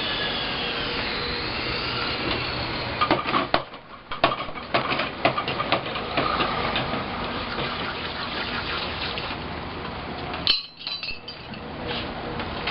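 Irregular metal clinks and knocks, as of metal tools and stock being handled in a metalworking shop, over a steady noisy background. The knocks cluster a few seconds in and again near the end.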